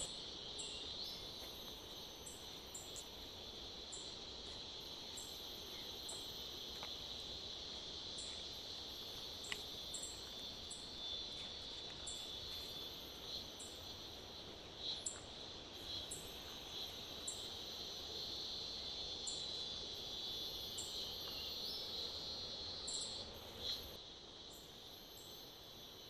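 Forest insects, crickets or similar, keeping up a steady high-pitched chorus, with short higher chirps repeating about once a second.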